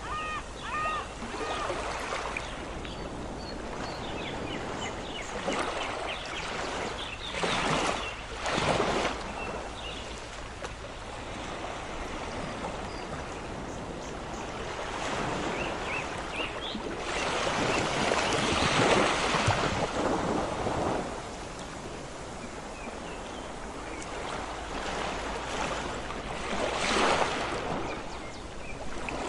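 Sea surf on a beach: a steady wash of water with three larger waves breaking, the loudest midway through.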